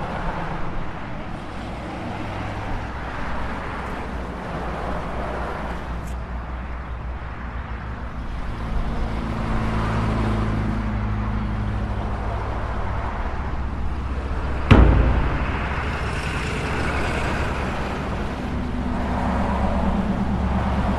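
Street traffic noise: vehicle engines running and passing in a steady wash, with a single loud bang about fifteen seconds in.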